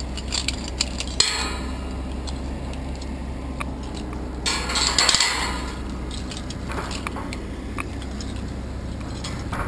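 Metal clinking and light clanks from a climber's harness hardware and hands against a steel lattice tower during the climb, with two louder hissing rushes about a second in and about five seconds in.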